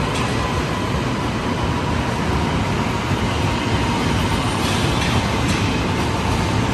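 RapidKL LRT train running along the track: a steady rumble of wheels on rail with a faint whine that drifts slightly lower in pitch.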